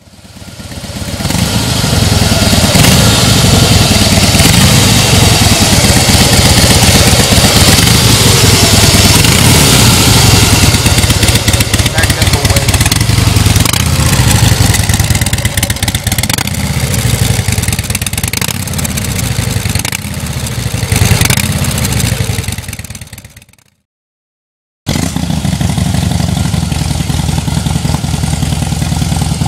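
A Harley-Davidson Heritage Softail's V-twin engine runs loud and steady through its exhaust, with a brief rev about 21 seconds in. The sound drops out for about a second near the end, then the engine is heard running again.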